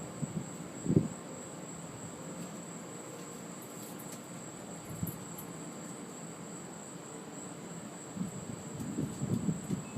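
Crickets keeping up a steady high trill, with a few short low thumps, the loudest about a second in and several more near the end.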